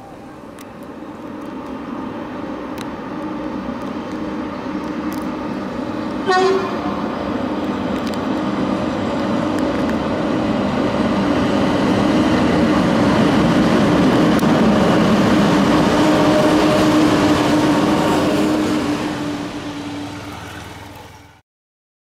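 A pair of WAG-7 electric locomotives running light, growing steadily louder as they approach and pass, with a steady low hum over the rumble of wheels on rail. A short horn blast sounds about six seconds in. The sound fades and then cuts off suddenly near the end.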